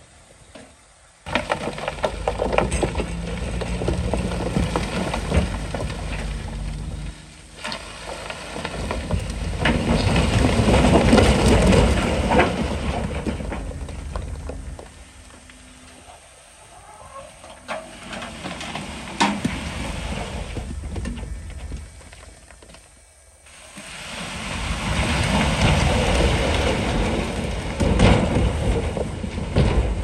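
Heavy diesel earthmoving machinery working rock. A steady engine hum starts suddenly about a second in, followed by long swells of rumbling, rushing noise from the rock, loudest around the middle and again near the end.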